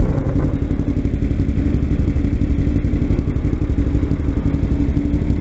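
Kawasaki Ninja 250's parallel-twin engine running steadily at low revs.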